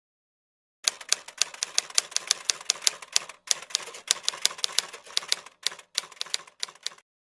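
Typewriter keystroke sound effect: a rapid run of sharp clicks, several a second, starting about a second in, with a few short pauses, and stopping shortly before the end.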